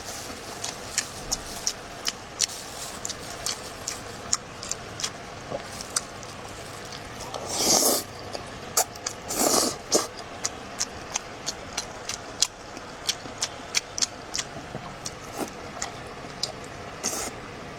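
Close-miked chewing: a steady run of wet mouth clicks and smacks, a few a second. About halfway through come two longer, louder slurps, each lasting under a second.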